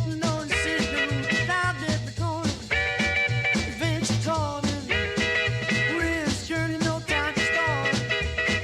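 Background music with a steady beat and wavering melody lines.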